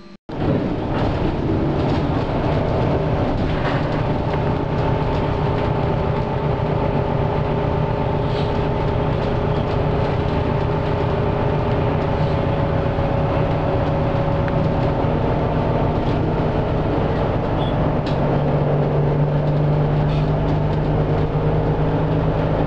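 A vehicle in motion heard from inside: a loud, steady rumble of road and engine noise with a constant low hum, which swells about three-quarters of the way through.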